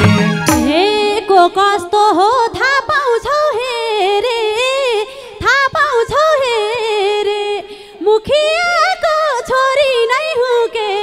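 A woman singing a Nepali lok dohori verse solo and unaccompanied, her voice sliding and bending in pitch, with two brief breaks for breath; the instrumental backing stops about half a second in.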